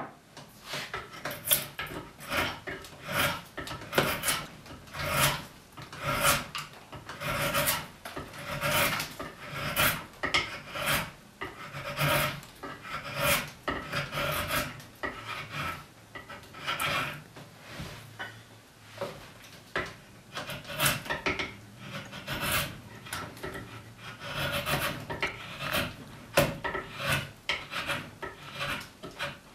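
Spokeshave cutting curled shavings from a tapered wooden piece, a rasping stroke about once a second.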